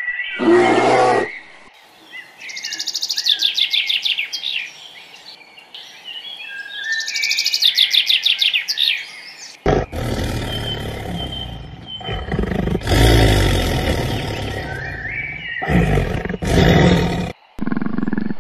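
A run of animal-call clips: rapid, high, bird-like chirping trills for several seconds, then loud roars from a large animal in several bouts, each broken off sharply.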